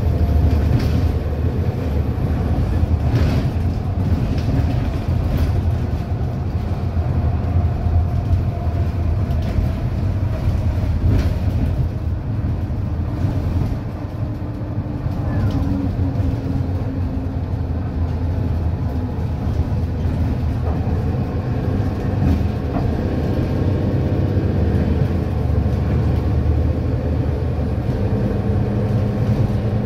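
Interior sound of a Mercedes-Benz Citaro single-deck bus on the move: its diesel engine and six-speed ZF Ecomat automatic gearbox running under a steady low rumble, with short rattles and clicks from the cabin. The engine note dips briefly about halfway through, then picks up again.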